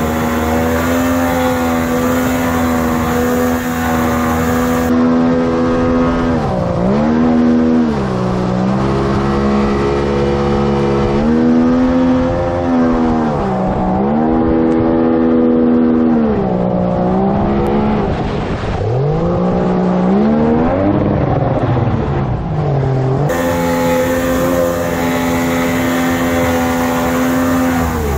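Mercury 50 outboard driving a water-jet nozzle, running hard with a RIB on the plane. Its revs dip and climb back several times through the middle, under a steady rush of wake water, loudest at the start and end.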